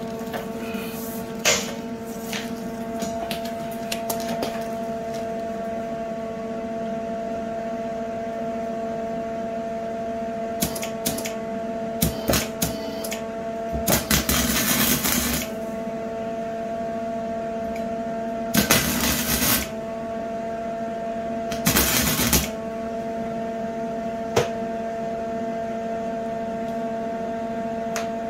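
Electric welder tack-welding the steel tubing of a shopping cart frame: three short crackling bursts of arc, the first about halfway through and two more a few seconds apart, over a steady electrical hum. A few sharp clicks and knocks of metal come in between.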